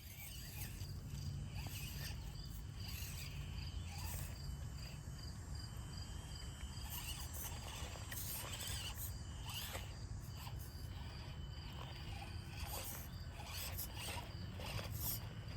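Outdoor ambience: an insect chirps in an even, rapid, high-pitched pulse over a low steady rumble, with scattered short rustles and clicks.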